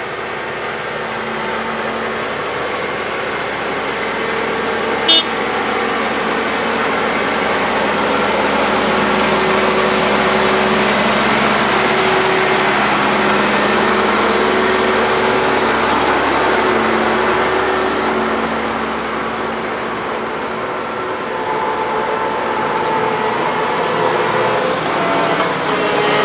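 Engines of heavy farm machinery running steadily, with one short horn toot about five seconds in.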